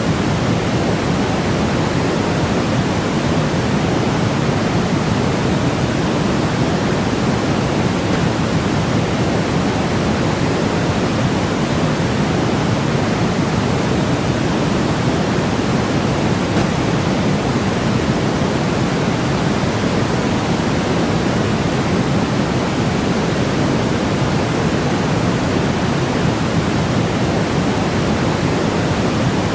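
Steady generated calming noise, a constant even rushing hiss with more weight in the low rumble than in the high end. It does not change at any point.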